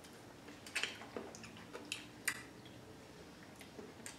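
Faint mouth sounds of people biting into and chewing seeded grapes dipped in ranch dressing: wet squishing with a handful of short, sharp clicks and crunches, the loudest about two seconds in.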